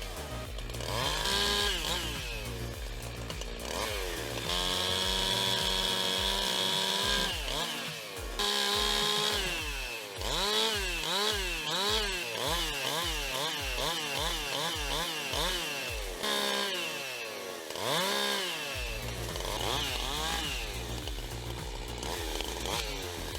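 Chainsaw engine running and being revved up and down. It is held at high speed for a few seconds at a time, and in the middle of the stretch it rises and falls in a quick run of swells, about one and a half a second.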